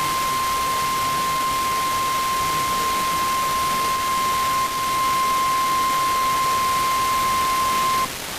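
NOAA Weather Radio 1050 Hz warning alarm tone: one steady, unbroken tone over radio static hiss, cutting off about eight seconds in. It signals that a warning is about to be broadcast.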